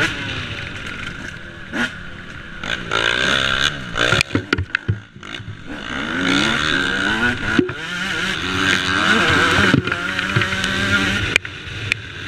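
Yamaha YZ125 two-stroke motocross engine revving up and down under hard riding. About four seconds in the throttle shuts off briefly amid a few sharp knocks, then the engine revs hard again.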